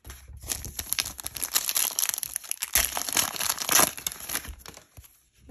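Foil wrapper of a 2021 Panini Chronicles Football card pack crinkling and tearing as it is ripped open by hand: a dense run of crackles that dies away near the end.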